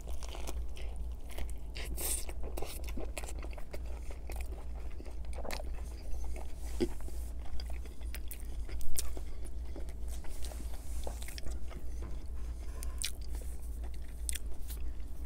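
A man chewing a mouthful of Burger King Whopper, with scattered wet mouth clicks and smacks and one louder click about nine seconds in. A steady low hum runs underneath.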